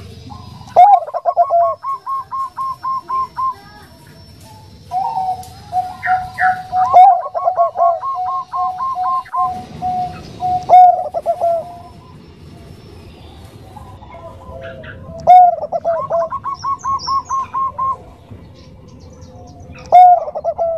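Zebra dove (Bangkok perkutut) cooing: about five phrases, each opening with a loud note and running on in a quick string of soft, evenly repeated coos.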